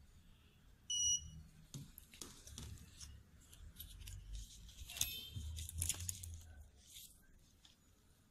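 LED dental curing light giving one short, high beep about a second in, the curing light's timer signal during curing of the composite. Then a few seconds of faint clicks and rustling from handling of instruments.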